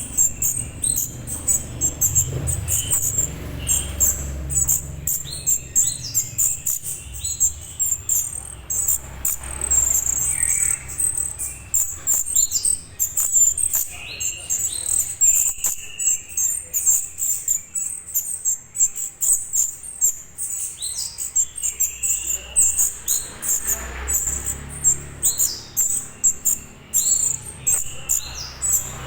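Juvenile orange-headed thrush calling: short notes that slide down in pitch, repeated irregularly, over a steady high insect-like chirring.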